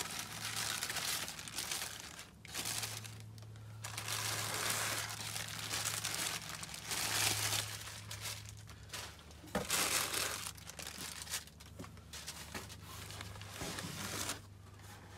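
Plastic air-cushion packing crinkling and rustling as it is pulled out of a cardboard box, in repeated handfuls with short pauses between, over a low steady hum.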